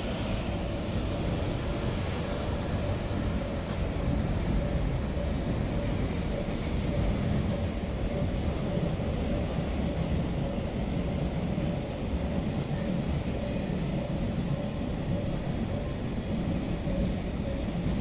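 Container freight train rolling through the station: a steady low rumble of wagons on the rails with a steady hum over it. The sound swells over the first second, then holds.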